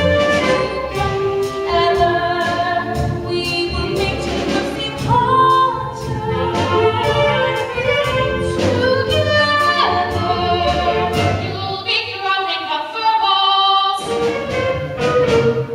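Several voices singing a musical-theatre song together, with instrumental accompaniment.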